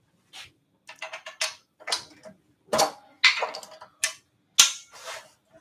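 Metal clicks and clinks of a lathe chuck being handled as its jaws are taken off to fit C jaws: a string of sharp, irregular knocks, several with a short ring.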